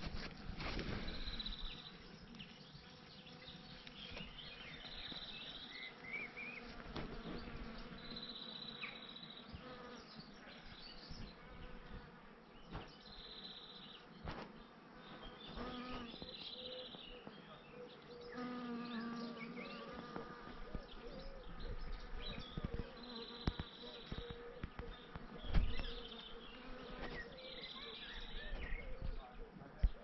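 Bees buzzing in flight with a steady hum that swells as they pass close, over woodland birdsong in which a short high note repeats every few seconds. Light footstep clicks throughout and one louder low thump about 25 seconds in.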